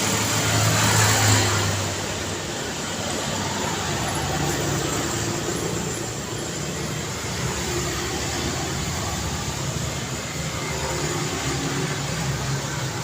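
City street traffic: a vehicle passes close by in the first second or so, then a steady wash of road traffic noise with engines running.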